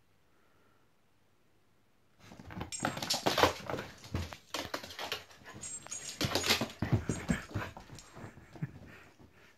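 A lurcher puppy and a Parson Russell terrier playing, making dog play noises and scuffling sounds, starting about two seconds in.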